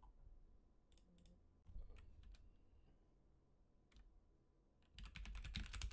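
A few faint scattered clicks, then computer keyboard typing that starts about five seconds in, a quick run of key clicks.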